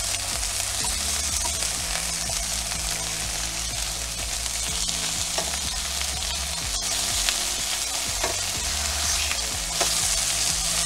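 Canadian bacon slices sizzling steadily in a hot stainless steel skillet as they are turned with metal tongs, with a few sharp clicks of the tongs against the pan.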